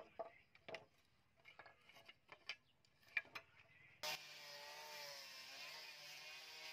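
A few scattered light knocks and clicks as the blade is handled on a wooden bench. About four seconds in, an electric angle grinder with a sanding pad starts up suddenly and runs steadily against the steel blade, its motor pitch wavering slightly under load.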